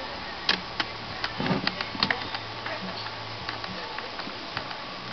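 Irregular small metallic clicks and ticks of a screwdriver working loose the heat-sink screws on a desktop PC motherboard, over a faint steady low hum.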